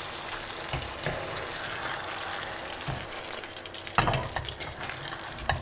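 Chicken kofta curry sizzling in a pan while a spoon gently stirs the meatballs, with a few soft knocks and scrapes of the spoon against the pan, the loudest about four seconds in.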